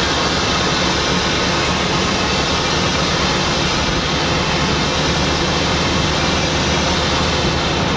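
Scania N94UD double-decker bus cruising steadily: a loud, even mix of engine drone, road noise and wind rush heard inside the upper deck, with no change in pitch or level.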